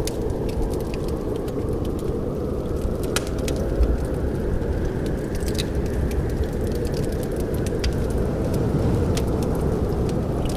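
Wood fire in a fireplace crackling: scattered sharp pops and snaps over a steady low rush of flame.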